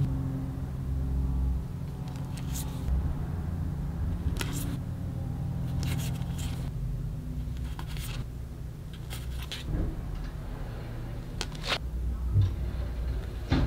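Stiff card and paper pieces being handled, giving short rustles and taps every second or two over a steady low hum.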